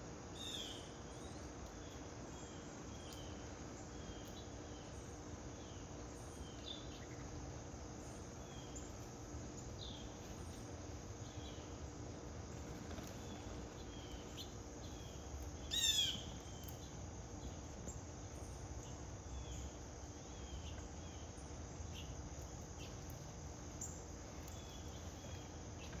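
Backyard birds chirping: scattered short, high calls throughout, with one louder call about two-thirds of the way through.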